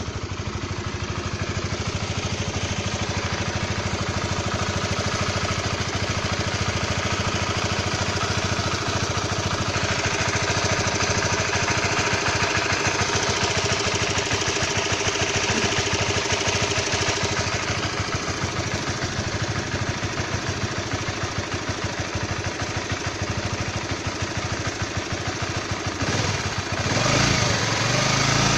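Honda CB150R single-cylinder engine idling, with a weird noise from the engine block that the owner says is becoming clearer. The bike is in standard condition on its standard oil. Near the end the engine note rises and shifts in pitch.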